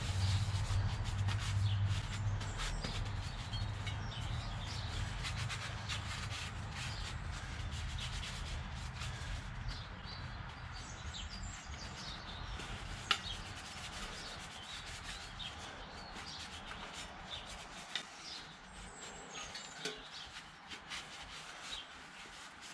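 Paper towel wiping and rubbing a wet steel motorcycle exhaust heat shield dry: an even, scratchy rubbing, with one sharp click about halfway through. A low hum under it fades away over the first two-thirds.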